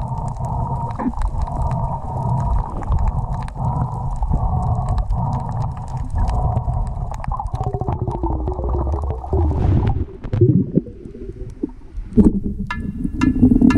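Underwater camera audio: a low, muffled rumble of water moving against the submerged camera housing, with scattered sharp clicks and a run of louder, evenly spaced clicks near the end.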